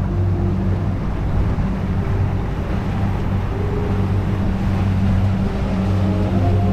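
Boat engine running steadily as a low drone, with wind and water noise over it.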